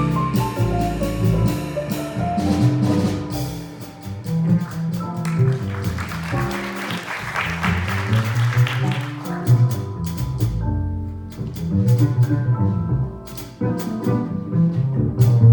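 Small jazz band playing live, with piano, double bass and drums.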